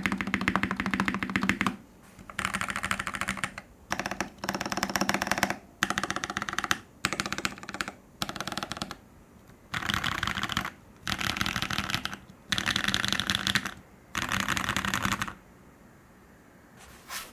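Typing on a custom gasket-mounted mechanical keyboard with a 1.5 mm aluminium plate, lubed Naevy r1.5 switches and DMK Dolch keycaps, resting on a leather deskmat. The keystrokes come in about ten quick bursts with short pauses between them, and the typing stops near the end.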